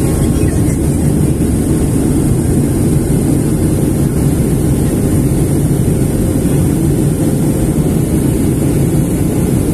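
Steady cabin noise of a jet airliner in flight after takeoff, heard from a window seat: an even, unbroken rush of engine and airflow noise, strongest in the low range.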